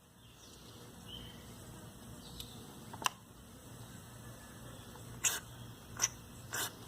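Aerosol carburetor cleaner hissing faintly as it is sprayed through the can's extension tube into the carburetor's jets and passages. Several sharp clicks come in the second half.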